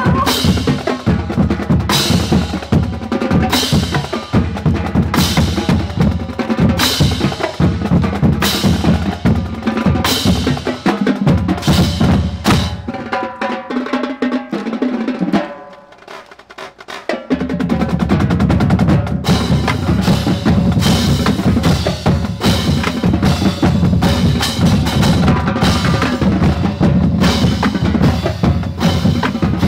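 Marching band drumline playing, bass drums and snares striking in fast, tight patterns. About halfway through the bass drums drop out for around two seconds, leaving lighter playing, then the full line comes back in.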